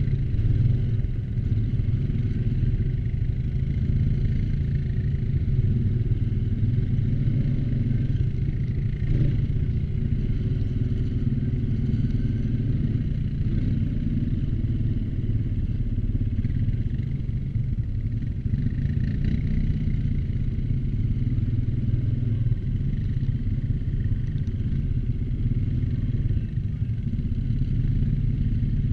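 ATV engine running steadily while riding, holding an even pace.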